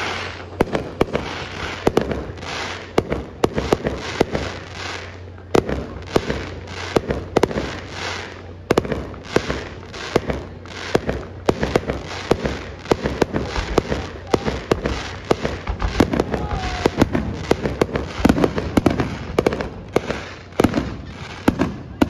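Aerial firework shells bursting at a display, a rapid run of sharp bangs several times a second.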